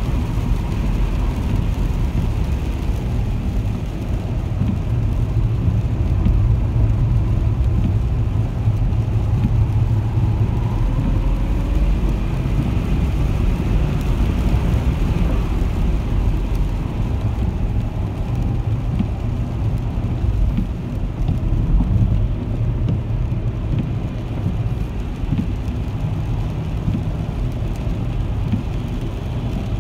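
Cabin noise of a Tesla Model S P100D at speed on a wet track: a steady low rumble of tyres and road with water spray and wind, and a faint whine that rises and falls with speed.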